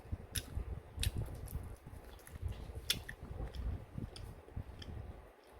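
Chewing tteokbokki rice cakes in rabokki, with low soft mouth sounds and sharp mouth clicks every second or so, the loudest about three seconds in.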